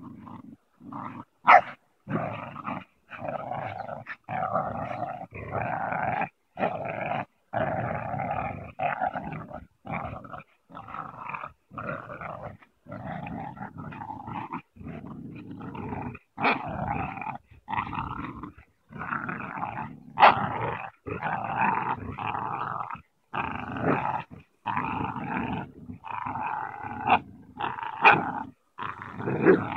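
American Staffordshire terrier and pit bulls growling in play while tugging on a rope, in rough runs of a second or two with short breaks for breath. Now and then there is a sharper, louder sound.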